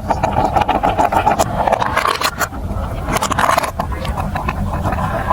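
Marbles rolling and clattering along a plastic building-block marble run track: a continuous rolling rumble with many small clicks.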